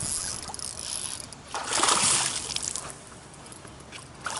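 A hooked peacock bass thrashing at the surface beside the boat: a splash about a second and a half in that lasts about a second.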